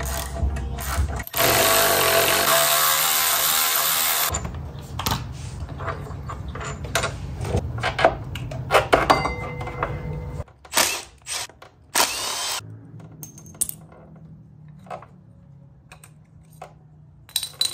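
A power tool runs in one loud burst of about three seconds, followed by scattered clicks and knocks of hand work. Background music plays underneath.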